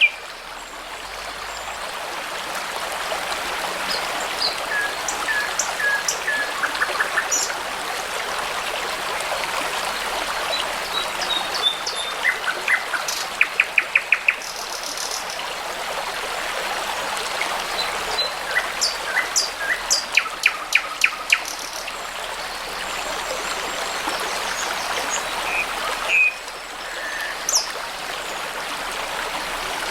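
Babbling brook flowing steadily under songbirds singing: scattered whistles and chirps, with two fast runs of repeated notes, one near the middle and one about two-thirds of the way through.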